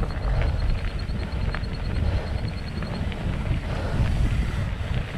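Wind buffeting the action camera's microphone as a steady low rumble, with scattered clicks and rattles and, for the first three seconds or so, a faint rapid high ticking.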